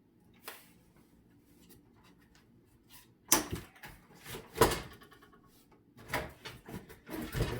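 Cardboard packaging being handled as a tightly tied-in prop part is cut and pulled free: a few loud knocks and scrapes in the second half, after a quiet start with one small click.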